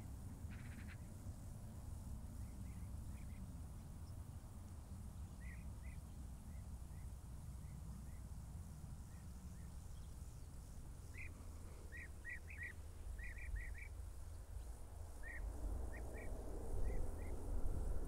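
Distant twin-engine turboprop on the runway: a low, steady engine rumble that grows louder in the last few seconds. Small birds chirp over it in short repeated calls, most busily in the second half.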